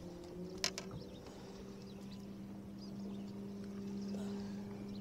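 A bass boat's motor giving a steady low hum, with one sharp click about two-thirds of a second in.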